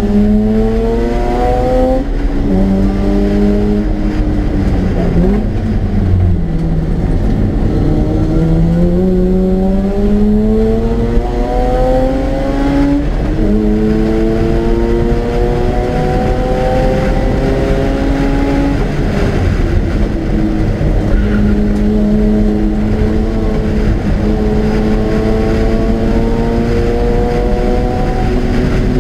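Mazda RX-8's two-rotor Wankel rotary engine at racing speed on track. It climbs in pitch under hard acceleration, drops sharply at gear changes, and falls when slowing for corners, over wind and road noise.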